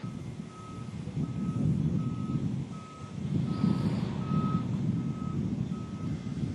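A heavy vehicle's backup alarm beeping steadily, about once every 0.7 seconds, over the low rumble of a running engine.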